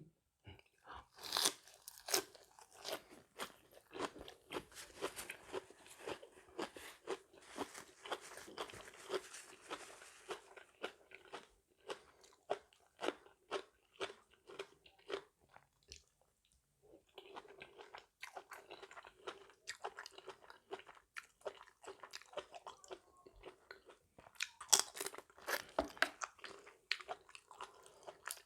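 A person chewing a mouthful of spicy mixed seafood salad close to the microphone: a run of crunchy bites and wet mouth clicks, with a brief pause a little past halfway.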